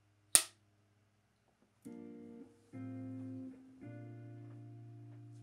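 A single sharp click, then three guitar chords, each strummed and left to ring, the last held longest.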